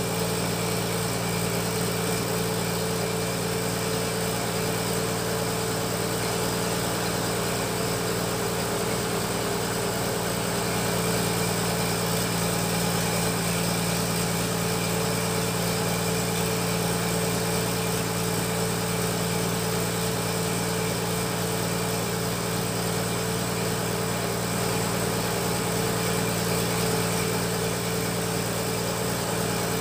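Fish-feed pellet machine running steadily while it extrudes strands of feed, a constant even hum with no change in speed.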